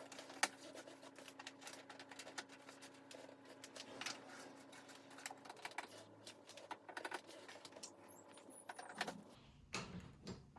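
Light, irregular clicks and taps of parts and tools being handled during reassembly, with a faint steady hum that stops about five and a half seconds in.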